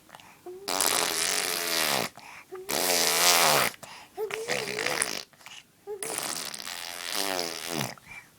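A baby blowing raspberries with her lips, making fart-like buzzing noises: about four separate blows of about a second each, each falling in pitch.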